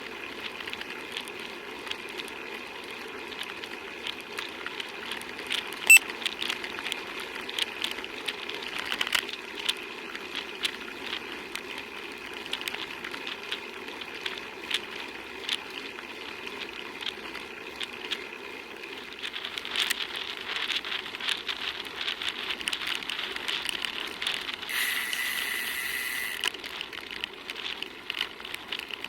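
Bicycle riding noise: a steady hum of tyres and moving parts with many irregular small clicks and rattles. There is a sharp click about six seconds in and a brief higher-pitched hiss near the end.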